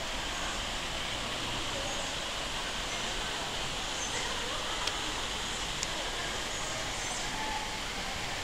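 Steady ambient hiss inside a tropical glasshouse, with a few faint, short high chirps and small clicks scattered through it.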